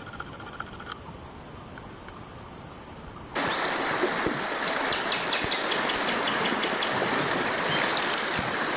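A shallow river running over a stony bed: a steady rush of flowing water that starts suddenly about a third of the way in. Before it, a much quieter stretch with faint clicking.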